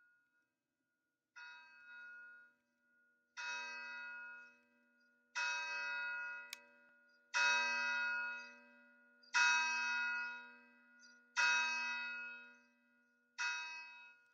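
A single church bell tolling, one strike about every two seconds, each strike ringing and fading before the next. The strikes grow louder over the first few and ease off near the end.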